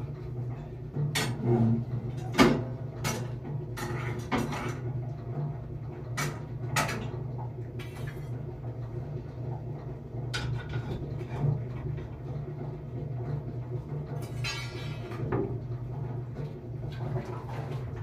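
Scattered knocks, clacks and rustles of a person moving about and handling things in a small wooden room, over a steady low hum; the sharpest knock comes about two and a half seconds in, and a brief fast rattle comes near the end.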